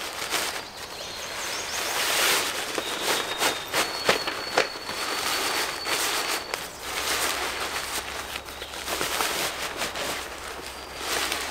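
Nylon beach-umbrella canopy and its carry bag rustling and crinkling in uneven swells as the folded umbrella is stuffed into the bag, with a few sharp knocks of the frame about four seconds in.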